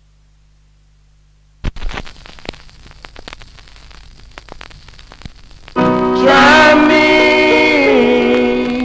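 A low hum, then the stylus drops onto a spinning 45 rpm vinyl single with a thump about one and a half seconds in, followed by a few seconds of surface crackle and clicks from the lead-in groove. About six seconds in, the record's music starts loud: a Jamaican rocksteady/soul band playing.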